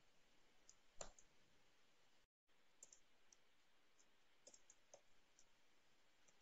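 Near silence with a few faint computer mouse and keyboard clicks: one clearer click about a second in, then a scattering of small ticks a couple of seconds later.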